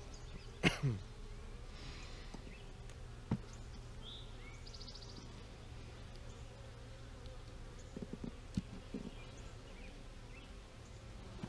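Honeybees buzzing steadily around an open hive as comb frames are handled, with a few short light knocks from frames being set into the wooden box about eight seconds in.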